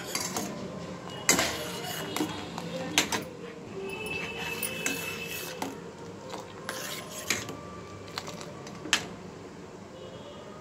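A steel ladle clinking and scraping against a stainless steel pot while stirring boiling milk, with several sharp knocks spread through and a steady low hiss underneath.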